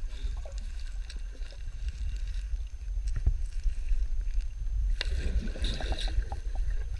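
Muffled underwater sound through a GoPro's waterproof housing: a steady low rumble of river water with scattered clicks, and a burst of splashing about five seconds in as a child wades and kicks through the shallows.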